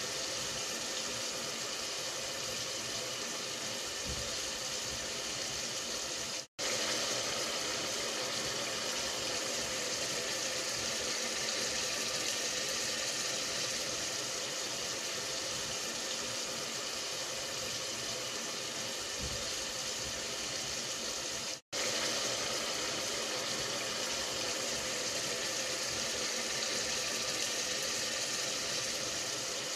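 Steady hissing noise that cuts out for an instant twice.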